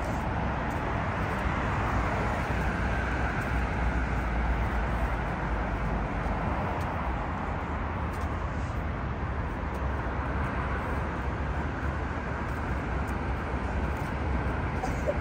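Steady road traffic noise: a continuous low rumble of cars.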